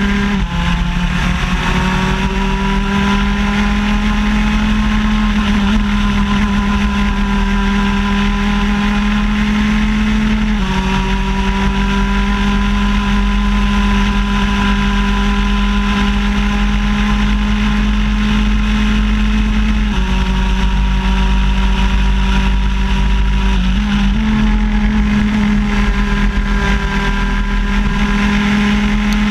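Two-stroke shifter kart engine running hard at high revs, heard onboard. Its steady buzzing note drops a step about ten seconds in and again about twenty seconds in, as with gear changes, with a brief dip and recovery near the end.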